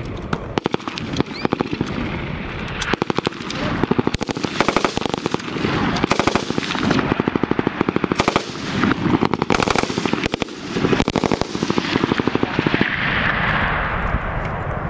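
5.56 mm belt-fed M249 light machine guns firing repeated short bursts, one burst every second or two, with fainter bursts from other guns on the line in between.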